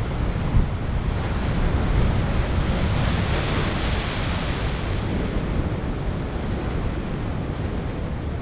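Ocean surf: waves breaking and washing ashore, a steady loud rush with a strong low rumble.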